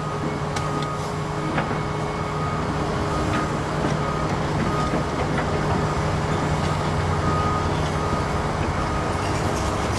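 Volvo ECR145EL excavator's diesel engine running steadily under work, with a faint high alarm beeping over it in short, regular beeps and a few light knocks.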